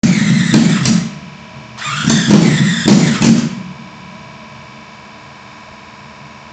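1.2-litre V8 engine running on short open exhaust headers, revved twice. There is a short blip at the start and a longer rev of nearly two seconds starting about two seconds in, and each time it falls back to a steady idle.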